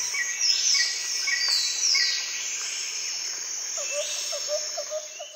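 Jungle ambience: birds calling over a steady insect hiss, with short repeated chirps and a few falling whistles, then a quick run of lower chirps near the end before it cuts off.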